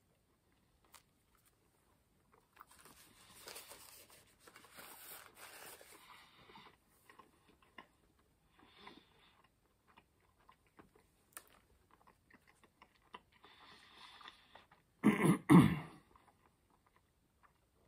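A person chewing a mouthful of fried chicken sandwich, faint and on and off, then coughing twice in quick succession near the end.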